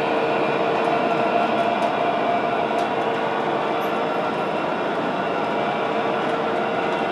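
O gauge model freight train rolling slowly along metal track: a steady rumble of wheels on rail, with a steady hum through it.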